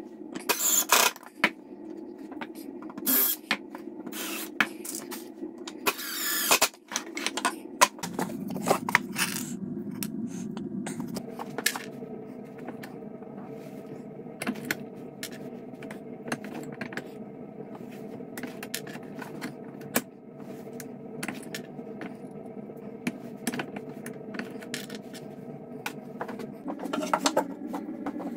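Woodshop work sounds: a cordless drill driving screws into pine slats in short bursts, with sharp clicks and knocks of tools and wood being handled. Over a steady background hum, the clicks thin out after about eight seconds.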